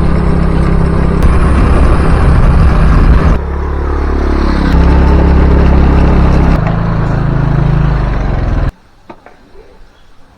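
Vehicle engine running loud and steady, its pitch dropping and shifting a few times with a falling glide partway through, as with gear changes under load; it cuts off abruptly near the end, leaving faint ticks.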